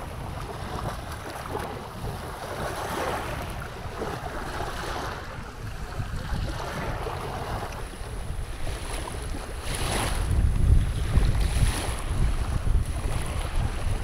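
Wind buffeting the microphone over small waves lapping in the shallows of a lake shore. The gusts grow louder about two-thirds of the way in.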